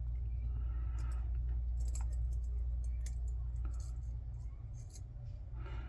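Scattered light clicks and taps of small lock parts and tools being handled while repinning a padlock core, over a steady low hum.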